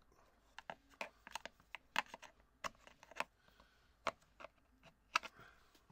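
Irregular sharp plastic clicks and taps from a plastic pry tool pressing parts back down inside a JBL Charge4 speaker's plastic housing.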